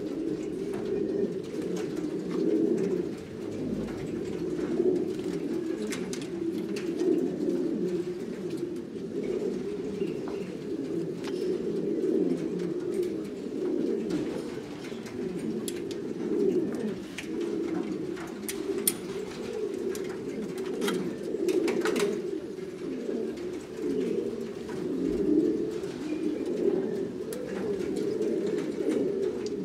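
Buchón Gaditano pouter pigeons cooing, several birds at once, their low wavering coos overlapping into an unbroken chorus.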